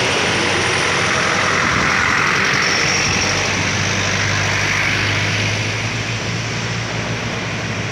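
Traffic passing close by: a diesel truck's engine running as it comes down the road, followed by an SUV and a small car driving past with engine and tyre noise. The sound eases a little about two thirds of the way through.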